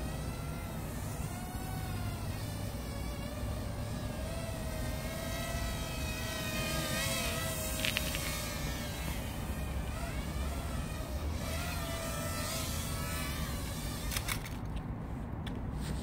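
Parrot Airborne Cargo minidrone's small electric motors and propellers whining in flight, the pitch wavering up and down as it manoeuvres, with a sharp click about eight seconds in. The whine dies away near the end.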